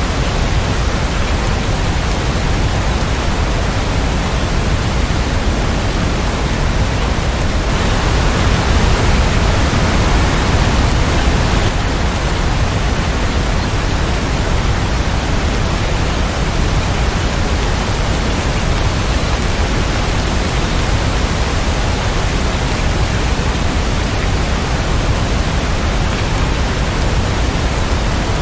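Steady heavy rain, an even hiss with a low rumble underneath. About eight seconds in it briefly grows louder and brighter for some four seconds, then settles back.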